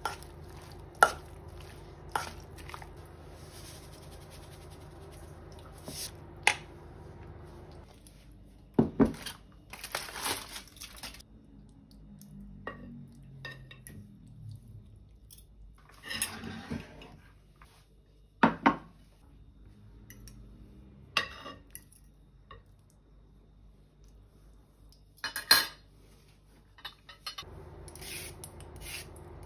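Metal utensils clinking, knocking and scraping against a stainless steel mixing bowl and a ceramic roasting dish: a spoon working through potato salad, then forks prodding and pulling at a braised pork shoulder. The sound comes as scattered sharp knocks and short scrapes with quiet gaps between them.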